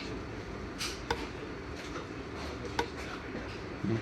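Several sharp metallic clinks and taps from tools and metal parts being handled during paramotor clutch assembly. Two clinks, about a second in and near three seconds, ring briefly, and a duller knock comes just before the end.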